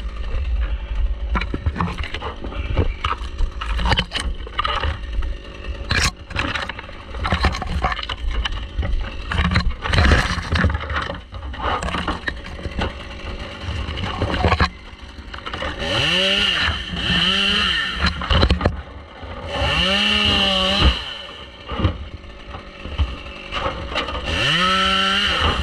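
Scattered knocks and scrapes against the tree for the first half, then a chainsaw revved up and down in three bursts, its pitch rising and falling with each.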